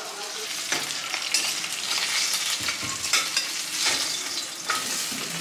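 Food sizzling in hot oil in a pan while it is stirred, the spatula scraping the pan in irregular strokes.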